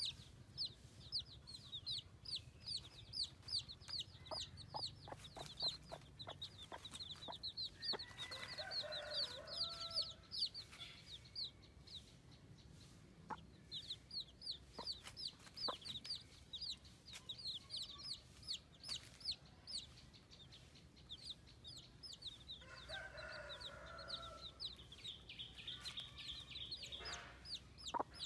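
Baby chicks peeping: quick, high, falling peeps several times a second, with short pauses, amid light tapping. Twice a lower-pitched call breaks in.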